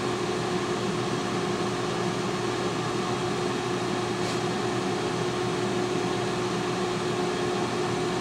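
T-fal digital air fryer running at 180 °C, its fan giving a steady whir with a constant low hum under it.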